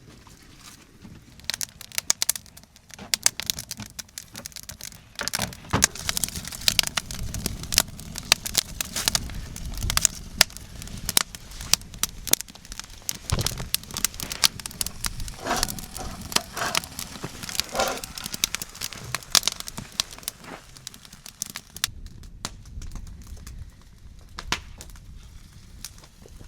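Wood campfire crackling, with irregular sharp pops and snaps that come thickest through the middle and thin out near the end.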